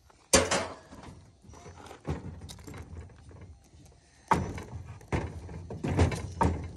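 A series of metallic knocks and clatters, about six, from cut lengths of copper pipe being handled and set down.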